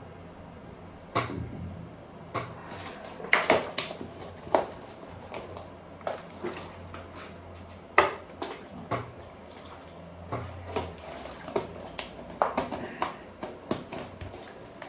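A run of irregular clicks, knocks and clatters, like household objects being handled, with a low hum underneath for much of it that fades out near the middle.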